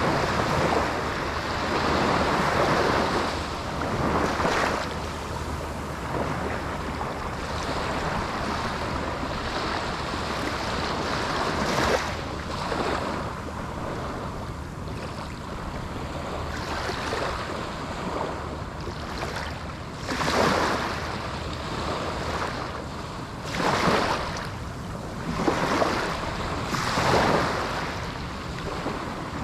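Small Atlantic waves breaking on a sandy beach and washing up the shore, one wash every few seconds, with wind rumbling on the microphone.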